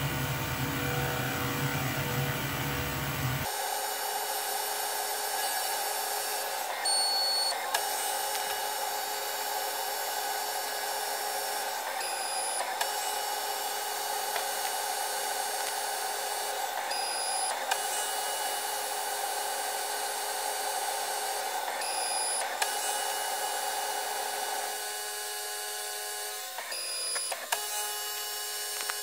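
CNC-converted PM-25MV benchtop mill cutting aluminium with an end mill: a steady spindle and cutting whine over several fixed motor tones. The sound changes briefly about every five seconds, and the main cutting note drops away near the end.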